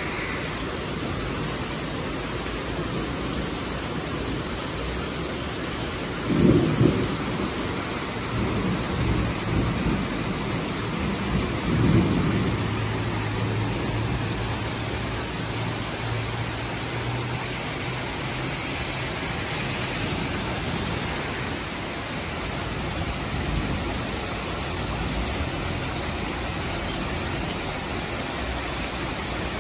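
Heavy summer rain pouring steadily onto the street. A low rumble of thunder swells and rolls from about six to thirteen seconds in.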